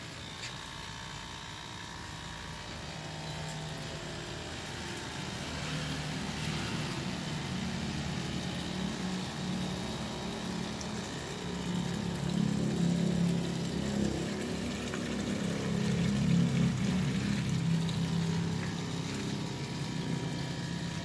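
Pond pump and filter running with water moving through them: a steady, uneven low churning that grows louder over the first dozen seconds, with a faint steady hum above it.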